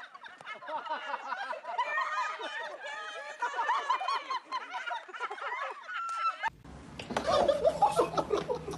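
A group of women laughing together, high-pitched overlapping laughter throughout. About six and a half seconds in it cuts abruptly to a different recording with a steady low hum and more laughter.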